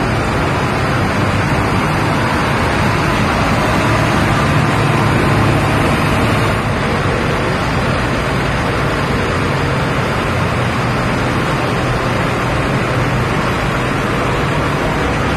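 Diesel engine of a Terberg Zagro road-rail shunting vehicle running, a steady unbroken drone.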